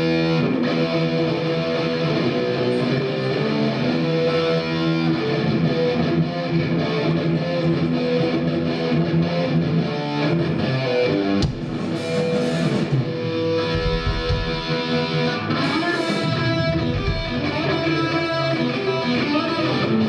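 Electric guitar played loud through a stage amplifier during a band's sound check, ringing chords that change every second or so. It starts abruptly and stops right at the end.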